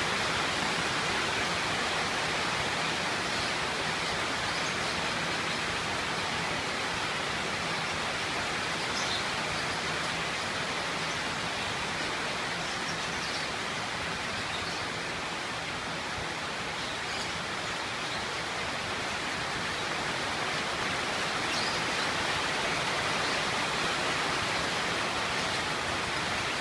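Rain falling steadily, an even hiss with a few faint high-pitched ticks now and then.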